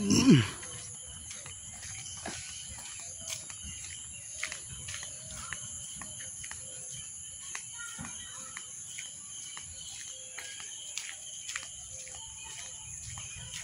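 Outdoor ambience: steady high-pitched insect chirring with occasional short bird chirps and scattered faint clicks. It is opened by a brief loud sound that falls in pitch.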